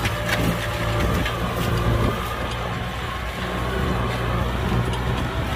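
Kubota M6040 SU tractor's four-cylinder diesel engine running steadily, working a plow through mud, with a few faint clicks over it.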